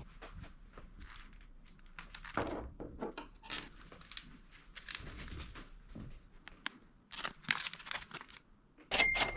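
Plastic lure packaging being handled and opened: irregular crinkling, rustling and tearing noises with a few small clicks. Near the end, a short, louder bright ringing tone comes in.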